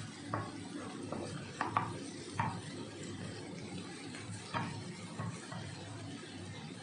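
Wooden spoon stirring sliced mushrooms in a granite-coated frying pan: irregular light knocks and scrapes of the spoon against the pan, about eight of them, the loudest around two seconds in, over a steady low hum.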